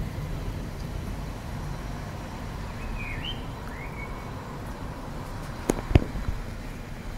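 Steady low outdoor rumble under an overcast thunderstorm sky, with a bird giving two short chirps about three seconds in and two sharp knocks near the end.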